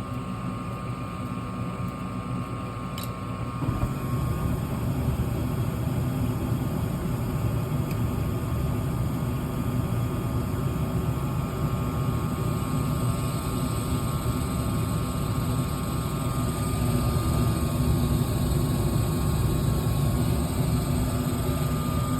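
Gas furnace firing with its circulating blower disconnected, as in a high limit switch test: a steady motor hum and rush of air. A click about three seconds in, then the rush of the burners grows louder and holds steady while heat builds toward the limit switch's trip point.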